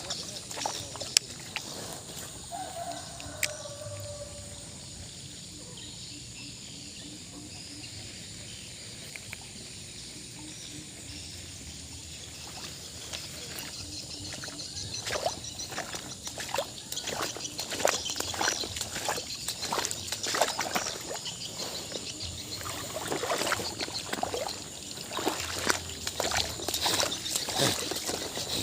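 Water sloshing and splashing in floodwater, sparse at first, then a busy run of splashes and clicks through the second half.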